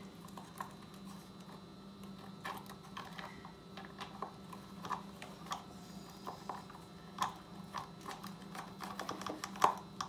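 Irregular light metallic clicks and taps as bolts are threaded by hand into a minibike's chain cover, with one louder click near the end, over a faint steady low hum.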